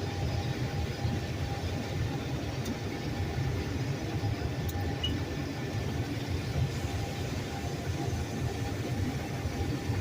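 Combine harvester's engine and machinery running steadily.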